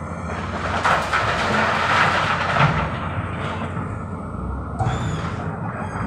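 Hydraulic excavator's diesel engine running steadily while it loads a dump truck. About a second in, a loud rush of dumped river rock and gravel lasts around two seconds, and a shorter noise follows about five seconds in.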